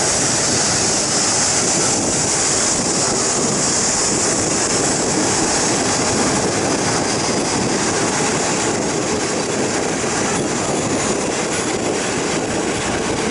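Steady running noise of a moving passenger train heard from inside the carriage: unbroken wheel-on-rail noise with a strong hiss that holds level throughout.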